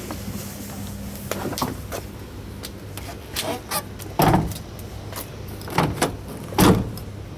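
Rear cab door of a Mercedes-Benz Sprinter van being worked by hand: a string of sharp latch and handle clicks and knocks, with the loudest knock about four seconds in and another near the end, over a steady low hum.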